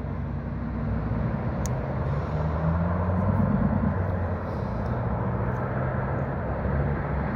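Steady low rumble of motor traffic, with an engine hum that rises and falls slightly around the middle. A faint click about a second and a half in.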